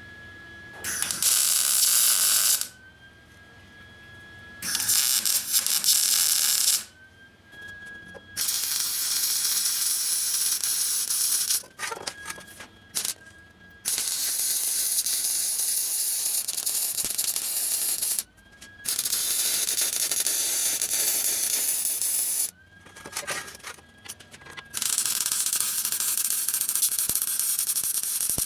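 Electric arc welder welding a broken exhaust muffler back together: about six bursts of crackling hiss, each a few seconds long, with short pauses between them.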